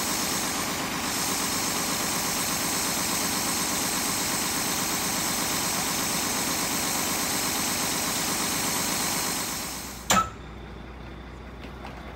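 Truck engine idling steadily. About ten seconds in it fades away, a single sharp click follows, and a much quieter background is left.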